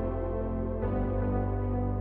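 Background music only: soft ambient music of held chords, moving to a new chord a little under a second in.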